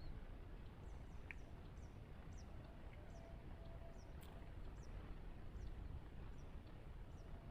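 Faint outdoor ambience: a steady low rumble with a series of short, high, falling chirps about twice a second, and a single sharper tick just over a second in.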